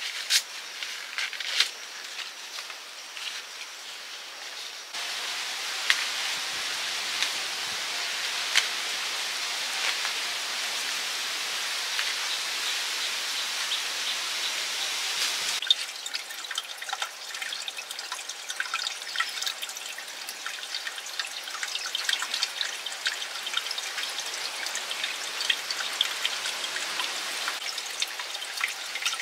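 Water trickling and dripping: a steady hiss scattered with small ticks and splashes. The sound changes abruptly about five seconds in and again midway through, as if cut between spots.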